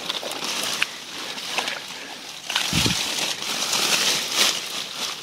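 Water sloshing and plants rustling as a net fish trap snagged in brush is hauled out of the water, with scattered clicks and a brief low thump about three seconds in.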